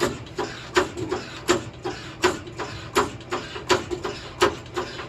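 Hydraulic floor jack being pumped to raise a car: a sharp click at each stroke of the handle, about one every three quarters of a second, with lighter clicks in between.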